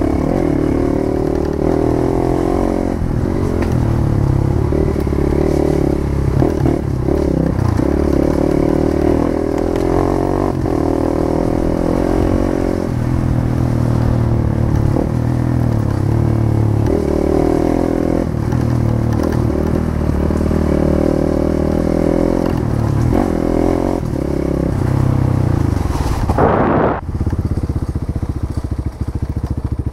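Motorcycle engine running while riding, its pitch rising and falling every second or two with the throttle. Near the end there is a short rising sweep, after which the sound changes abruptly.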